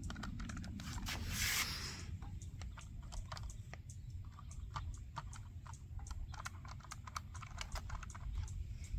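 Rapid, irregular small clicks and taps, with a short rustle about one and a half seconds in, over a steady low rumble.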